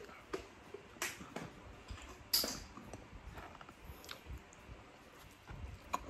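Hand-eating and chewing sounds: scattered short clicks and crackles as rice and pork adobo are picked up by hand and eaten, with one sharper crackle about two and a half seconds in.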